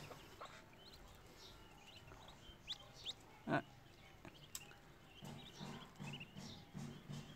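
Muscovy ducklings peeping faintly, with short rising peeps scattered throughout. There is one louder short sound about three and a half seconds in, and a run of quick low pulses over the last two seconds.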